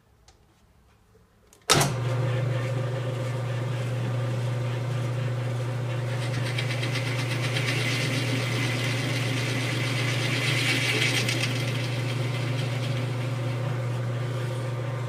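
Drill press switched on about two seconds in, its motor then running with a steady hum. For several seconds in the middle, a 1¼-inch Forstner bit bores a 1/4-inch-deep hole into plywood, adding a cutting noise over the motor.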